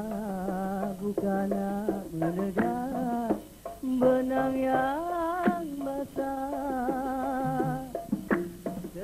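Dikir barat singing: a single voice holds long, wavering, ornamented notes that slide between pitches, with a short break about three and a half seconds in.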